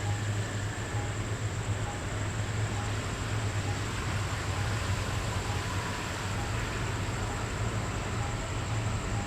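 Train running with a steady low hum and rumble, with a faint short tone recurring at regular intervals.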